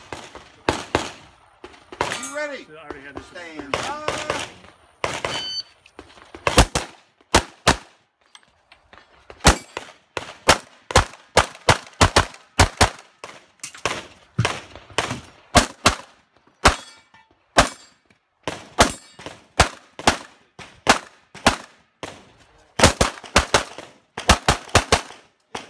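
Competition pistol fire during a timed practical shooting stage: dozens of sharp shots, mostly in quick pairs and short strings, with brief pauses between strings.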